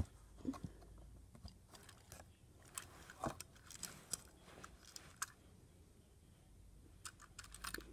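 Faint, scattered clicks, taps and rustles of a small toy train engine and its cardboard box being handled, with a short cluster of clicks near the end.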